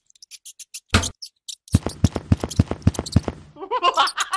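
A single knock, then a quick run of knocks at about five a second, ending in a short, wobbly cartoon-style laugh sound effect.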